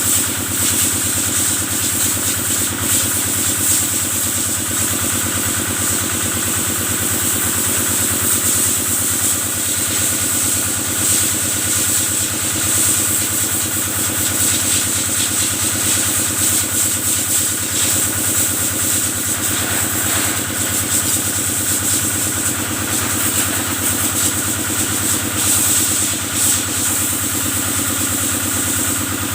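Kubota diesel engine driving a cattle-washing pump, running steadily at an even speed, with a constant high hiss over it.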